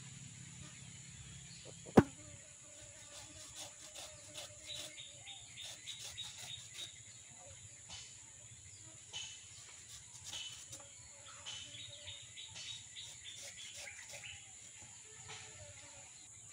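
Raw pork being cut by hand against an upright curved blade set in a wooden board, with faint wet cutting clicks, and one sharp knock about two seconds in. Birds chirp and insects buzz steadily behind it.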